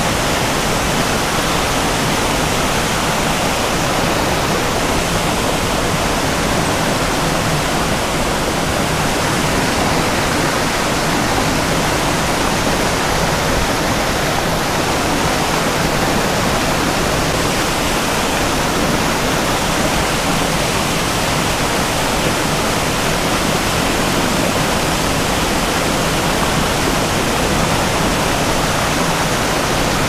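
Mountain creek water rushing over granite boulders in a small whitewater cascade into a pool: a loud, steady, even rush.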